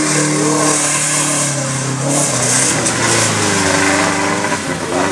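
Small 4x4 SUV's engine revving hard and held at high revs as it ploughs through a muddy stream, with water splashing and spraying around it. About two seconds in the revs drop and waver as the truck pushes on through the water.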